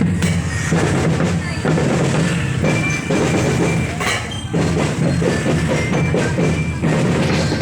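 Children's marching drum band playing, with bass drums and snare drums beating steadily and short high bell-like melody notes over them.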